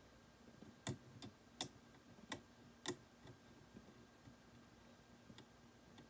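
Steel hand scaler clicking against the teeth of a plastic dental model during scaling strokes: five or six sharp clicks in the first three seconds or so, then a faint one near the end, over quiet room tone.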